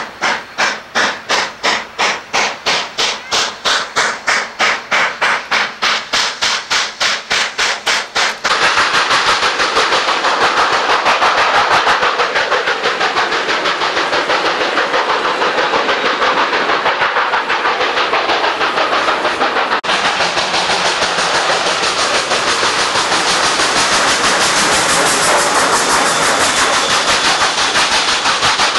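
Steam locomotive exhaust, chuffing in sharp, even beats about three times a second while working hard upgrade. About eight seconds in, the sound cuts abruptly to a denser, faster, continuous run of exhaust beats.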